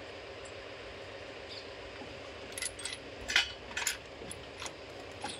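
A quick run of sharp metallic clinks and clicks, loudest about three and a half seconds in, as metal parts of the rocker-arm assembly on the open cylinder head of a Cummins KT1150 diesel engine are handled. A steady hum runs underneath.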